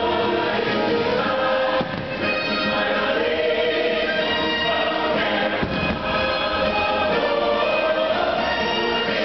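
Fireworks show soundtrack: music with a choir singing in sustained chords, played over loudspeakers.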